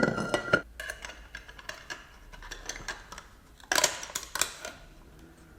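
Steel parts of a ZF 6HP26 automatic gearbox, its output shaft and ring gear, clinking and scraping against each other as they are handled and fitted together. The clinks come in an irregular series, loudest at the start with a brief metallic ring and again about four seconds in.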